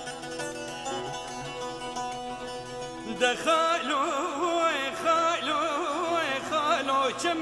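Kurdish folk song: an instrumental accompaniment holds steady sustained notes, then about three seconds in a male voice comes in over it with a wordless, heavily ornamented melody with wide vibrato.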